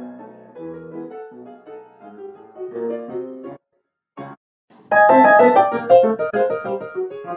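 Grand piano playing a ragtime piece, breaking off after about three and a half seconds with one lone chord in the pause. About five seconds in, much louder, brighter piano music starts.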